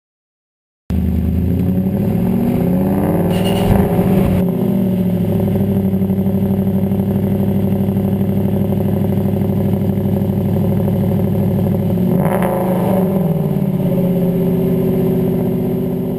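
Aston Martin V8 Vantage's 4.7-litre V8 through an RSC sport exhaust, heard at the tailpipe: it cuts in about a second in and idles steadily, with two throttle blips, one about three seconds in and one about twelve seconds in, each rising and falling in pitch.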